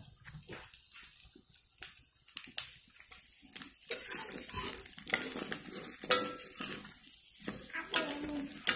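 Wooden spatula scraping and tapping against a wok while egg fries and sizzles in it. The clatter grows busier and louder about four seconds in.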